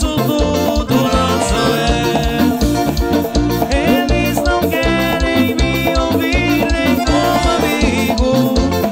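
Lambadão dance music played live by a band: a fast, steady beat of drums and bass under melodic lines from the instruments.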